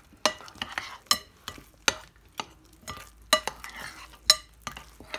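Wet paratha dough being mixed by hand in a cut-glass bowl: soft stirring and squishing, broken by several sharp clinks against the glass that ring briefly.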